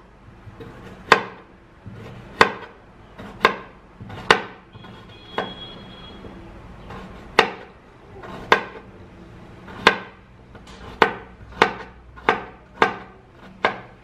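Kitchen knife slicing a carrot into rounds, each cut ending in a sharp knock of the blade on the cutting surface. About a dozen cuts, roughly one a second, coming quicker near the end.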